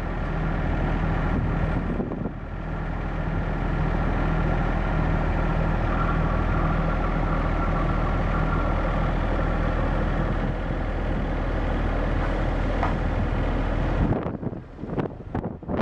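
Steady diesel engine drone of a Godwin pump pumping floodwater. About fourteen seconds in, the drone drops away and wind buffets the microphone.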